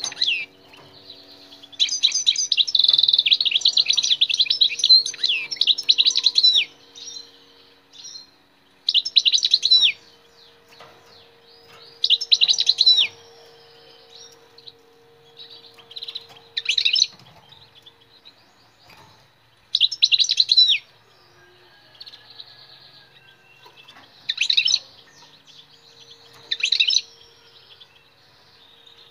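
European goldfinch singing in bursts of fast, liquid twittering. One long phrase of about four seconds is followed by short bursts every three to four seconds.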